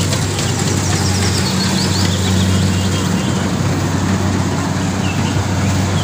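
Rice combine harvester's engine running with a steady, unchanging low hum.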